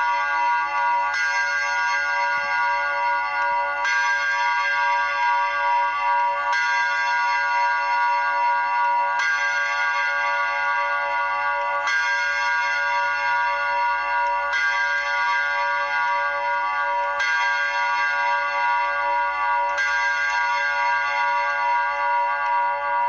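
Craftline Triplechime grandfather clock striking the hour of midnight: eight evenly spaced strikes, one about every two and a half seconds, each ringing on into the next, the last left to die away near the end.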